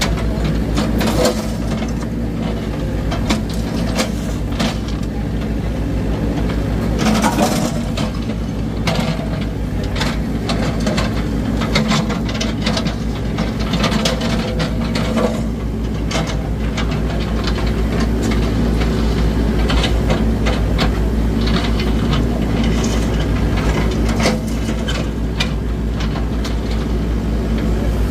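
A heavy engine running steadily at a low, even pitch, with scattered knocks and clatter on top.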